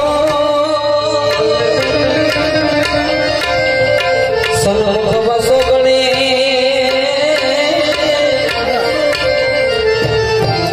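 Instrumental interlude of a Gujarati bhajan: harmonium playing a held, wavering melody over steady tabla strokes.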